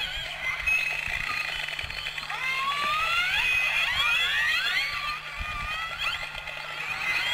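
Orca calls: many overlapping whistles and calls gliding up and down in pitch, over a steady low hum.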